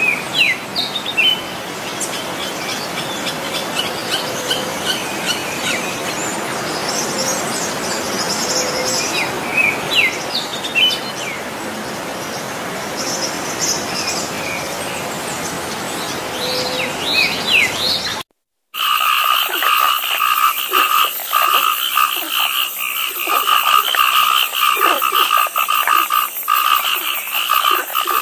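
Wild forest ambience: scattered short bird chirps over a steady hiss. After a brief dropout about two-thirds of the way in, a steady high trilling chorus of calling animals takes over, with occasional chirps over it.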